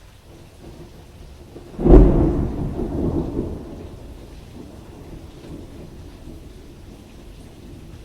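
Thunderstorm: a sudden close thunderclap about two seconds in, rumbling for a couple of seconds and fading, over steady rain.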